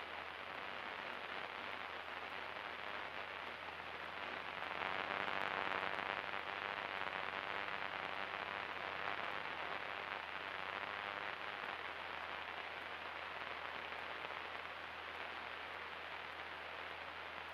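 Steady hiss on the Cessna 172 Skyhawk's cockpit radio and intercom audio, with a faint steady low hum from the engine and propeller underneath. It swells a little about five seconds in, then settles.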